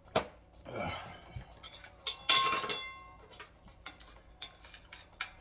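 A plate and cutlery being handled: a sharp knock near the start, a louder clatter about two seconds in that rings briefly, then a run of small clicks and clinks.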